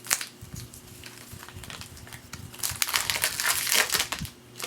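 Trading-card pack wrapper crinkling as it is handled, with a few light clicks in the first second and a louder, denser stretch of crinkling for about a second and a half near the end.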